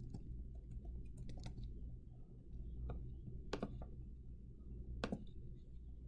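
Computer keyboard typing: a few scattered key taps over a steady low hum.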